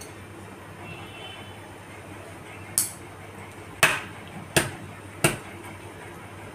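Water boiling in a steel pan, a steady bubbling hiss, with four sharp clinks between about three and five seconds in, the second the loudest.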